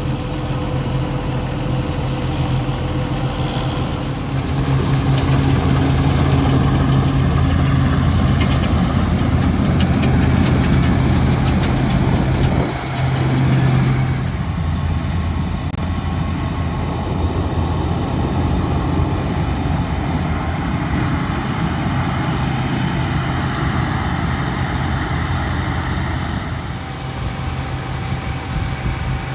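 Heavy diesel engine of harvest machinery running steadily, getting louder about four seconds in, with a brief dip and change in tone around the middle.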